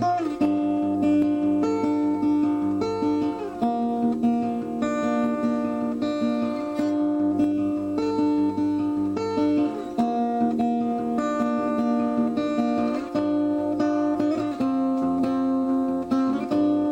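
Music played on strummed acoustic guitar, its chords changing every second or two.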